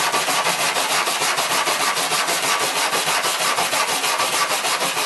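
Small stainless steel wire brush scrubbed rapidly back and forth on a bare aluminum panel in fast, even strokes, scouring off aluminum oxide to clean the spot for welding.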